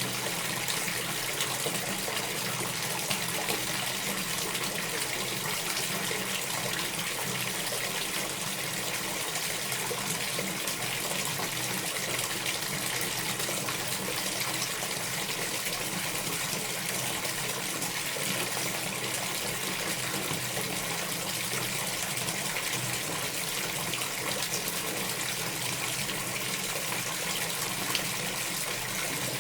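Household bathtub filling from the tap: a steady gushing stream of water running into the tub.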